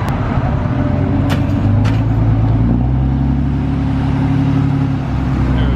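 Engine of a Ram heavy-duty dually tow truck working hard at steady revs as it drags a chained, wrecked Toyota Tacoma out of the bushes. A couple of sharp clicks come in the first two seconds.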